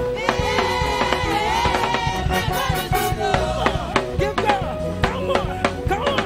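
Live gospel praise music from a church band: drum strikes on a steady beat over bass and sustained held chords, with singing voices carried over them.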